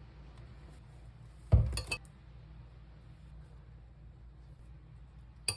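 A dish or glass set down hard with a clink about a second and a half in, ringing briefly, then a smaller click near the end.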